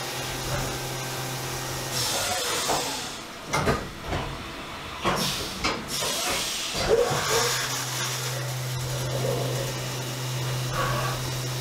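Haas VF2SS CNC vertical mill spot drilling with a half-inch carbide spot drill under flood coolant: a steady hiss of coolant spray over a low machine hum. The hum drops out for a few seconds in the middle, where a few sharp knocks come.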